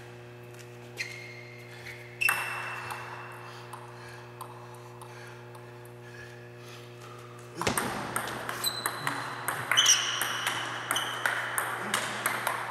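Table tennis ball clicking off paddles and the table. A few single bounces come first, then from about halfway a quick rally of sharp pings, over a steady low hum.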